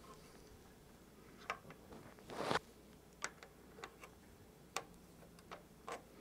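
Light scattered clicks and taps of hand tools and small fittings being handled on a brass live-steam model locomotive, with one brief, louder scraping noise about two and a half seconds in.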